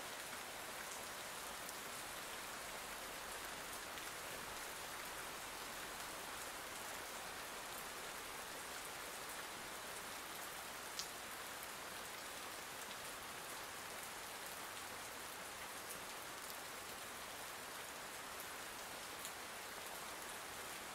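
Steady rain falling, an even hiss with an occasional faint drop ticking; one tick is a little louder about halfway through.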